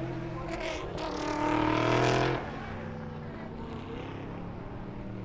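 Endurance race car engines accelerating past at trackside, pitch climbing. The loudest car rises in pitch from about a second in and cuts off sharply after about two and a half seconds, leaving a more distant engine running at a lower, steadier note.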